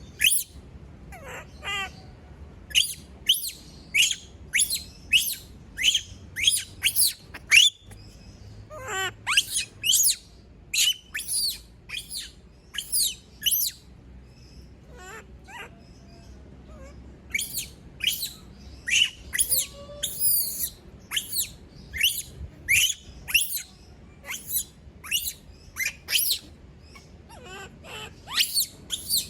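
Young pet monkey screaming in short, shrill, high-pitched calls, one or two a second, with a pause of a few seconds midway: the distress calls of a monkey left alone.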